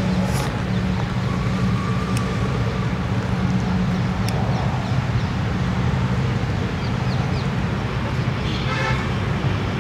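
Steady road traffic noise with a constant low engine hum. A short horn toot sounds near the end.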